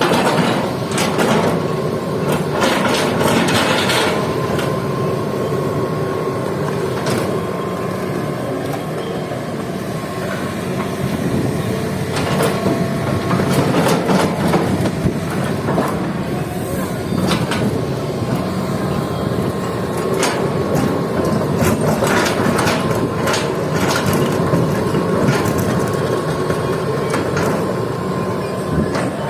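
Hitachi excavator's diesel engine running under load with a steady hydraulic whine, while rock and gravelly soil knock and clatter into a steel dump truck bed, with repeated sharp knocks throughout.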